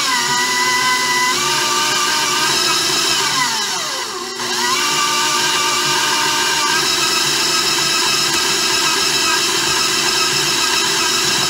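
KitchenAid stand mixer motor running with a steady whine as its flat beater churns crumbly pie dough. About four seconds in, the whine drops in pitch and then climbs back.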